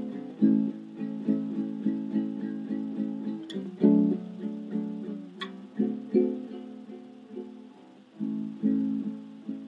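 Music: a soft guitar playing repeated plucked chords in a steady rhythm, with no singing.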